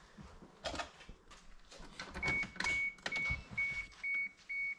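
Electronic beeper sounding a steady run of short, high single-tone beeps, about two a second, starting about two seconds in after a few faint knocks.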